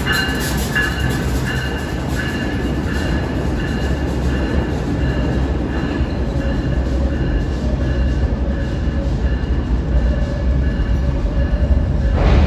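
New York City subway train passing through the station: steel wheels clacking over rail joints at first, fading as the cars move off, over a steady rumble. A sudden loud burst comes near the end.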